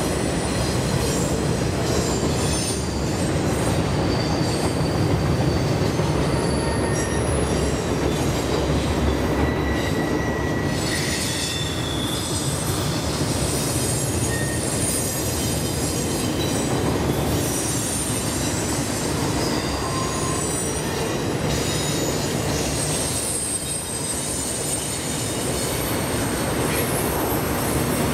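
Double-stack intermodal freight cars rolling steadily over a steel truss railway bridge: a continuous rumble of wheels on rail, with thin high wheel squeals that come and go.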